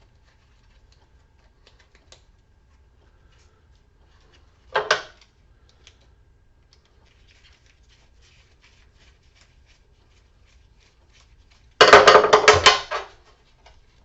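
Hand-disassembly of scrap metal parts: faint clicks of tools and small parts being handled, a short clatter about five seconds in, then a loud rattling clatter of metal pieces lasting about a second near the end.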